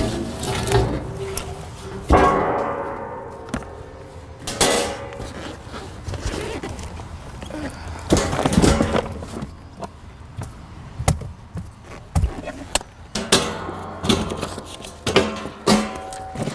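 Irregular thunks, knocks and rustling from someone clambering into the packed back of an SUV and shifting things about.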